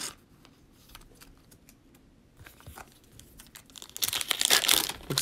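Foil wrapper of a Panini Prizm football card pack crinkling and tearing open, loud from about four seconds in. Before that, only faint clicks of cards and packs being handled.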